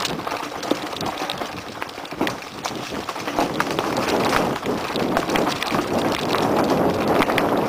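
Mountain bike riding fast down a loose, rocky trail: tyres crunching over stones and gravel while the bike rattles with a constant stream of sharp knocks.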